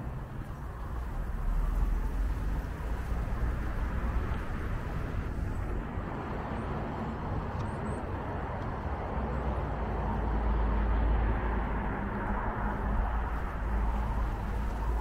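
Urban street ambience: a steady rumble of road traffic, swelling about ten seconds in.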